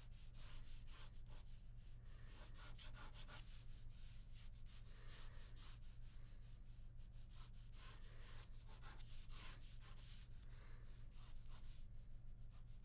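Ballpoint pen scratching across paper in many quick, repeated sketching strokes, over a steady low hum.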